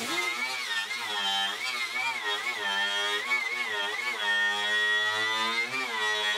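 Hand-held grinder whining as it is pressed against the rear wheel-well panel, its pitch dipping and recovering over and over as the wheel loads up and frees, while it grinds away body filler to expose the old brazed seams.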